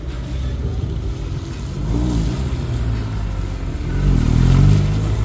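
Motorcycle engines running at low speed, revved up and back down twice, with the louder rev near the end.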